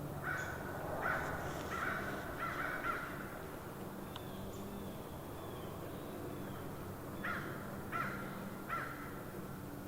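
Crow cawing: a run of about five caws in the first three seconds, then three more evenly spaced caws near the end.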